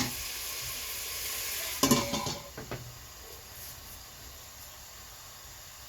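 Bacon sizzling in a pot on medium heat. About two seconds in there is a brief clatter, and after it the sizzle is quieter.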